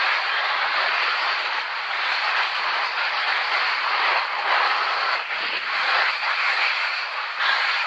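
Skis sliding over snow during a downhill run: a steady rushing hiss that swells and eases with the turns.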